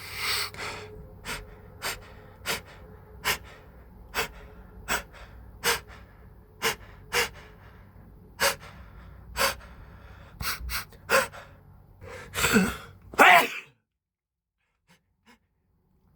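A man's allergy sneeze build-up: a long run of short, sharp gasping breaths, one roughly every second, then one loud sneeze in two parts about twelve seconds in.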